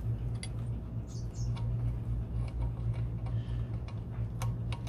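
A few scattered light clicks of an Allen key and the drain plug being worked loose on a Volvo Penta sterndrive's gear case, the sharpest click near the end, over a steady low hum.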